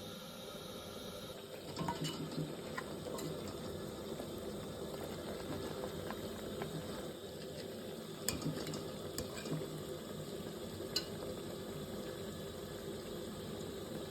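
A pot boiling on the stove with a steady bubbling hiss. A few light clicks and knocks of kitchen utensils come at about two seconds, eight seconds and eleven seconds in.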